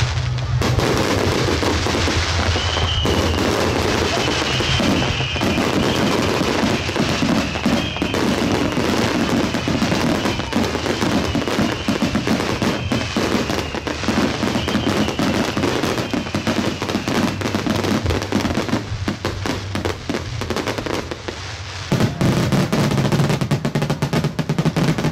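A fireworks barrage going off: many shells bursting at once in a continuous rapid run of bangs and crackling, louder again near the end.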